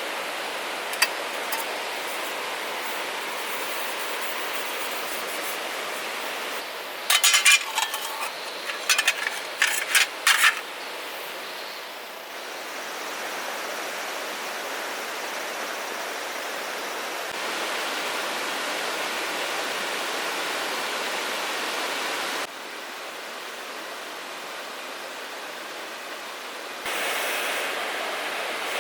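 Steady rushing noise of flowing water, with a quick run of sharp clicks and knocks about a quarter of the way in.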